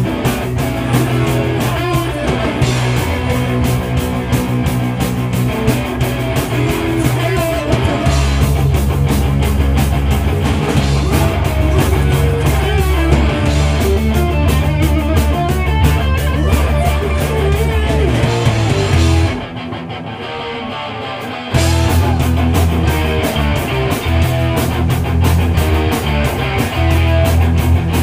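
Live rock band playing loud: electric guitars, bass and steady drumming. About nineteen seconds in the drums drop out for about two seconds, leaving the guitars ringing, then the full band comes crashing back in.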